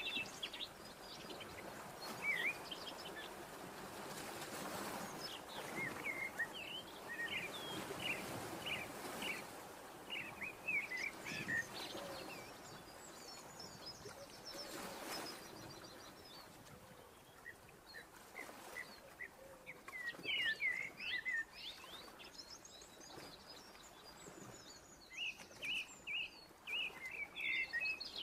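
Small birds chirping, with short repeated calls and trills that come in bouts with gaps, over a soft background hiss.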